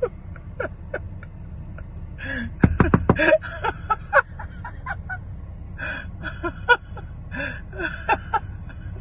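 A woman's stifled giggling and snickering, with a louder burst of rapid laughing about three seconds in, over a steady low rumble inside a parked car.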